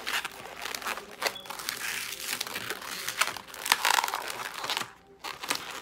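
Latex 260 modelling balloons rubbing and crinkling under the hands as they are squeezed and pinch-twisted: a run of irregular short scrapes that drops away briefly about five seconds in.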